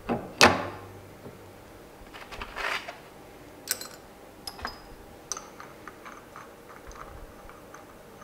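Metal gearbox parts of a gear motor being fitted back together by hand: two sharp knocks near the start, a short scrape, then a run of light metallic clicks and ticks as the cover is seated and pressed down.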